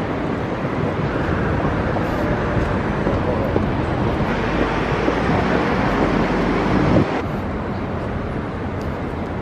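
City street traffic: cars passing at an intersection, swelling to a peak about seven seconds in, then dropping suddenly to a quieter, steady city hum.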